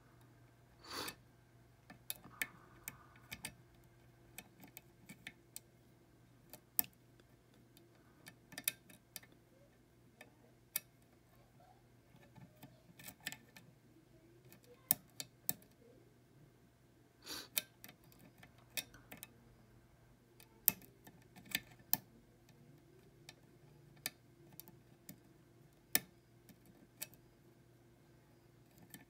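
Lock pick and tension wrench working the pins of a Chicago filing cabinet lock: small, irregular metallic clicks and ticks, with a couple of short scrapes.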